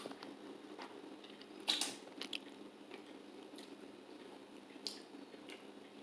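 Faint mouth sounds of a person tasting a smooth spread licked from a finger: a few scattered lip smacks and clicks, the clearest just under two seconds in.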